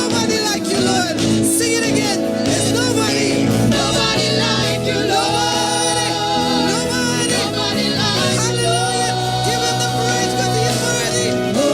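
A worship team singing a gospel song with instrumental backing, the voices gliding between long held notes.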